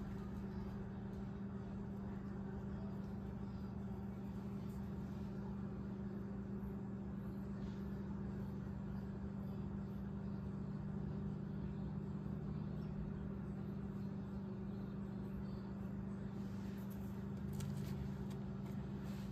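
Steady low machine hum with a constant droning tone, unchanging throughout.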